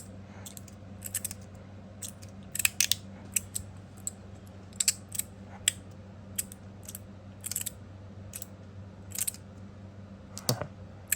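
Magnetic fidget slider with stainless steel plates being slid back and forth by hand, the plates snapping into place with sharp metallic clicks at an uneven one or two a second, some in quick pairs. A low steady hum sits underneath.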